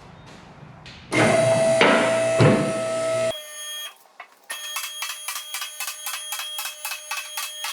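A loud sound with a steady tone that cuts off abruptly about three seconds in. It is followed by rapid, rhythmic electronic beeping over steady tones, like a buzzer or alarm.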